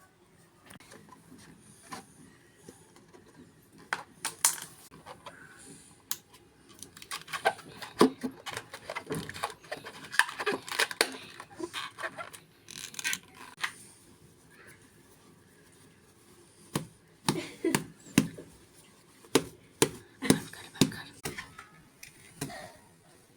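Irregular clicks and light clattering of kitchen utensils and food being handled, coming in busy clusters with quieter gaps between.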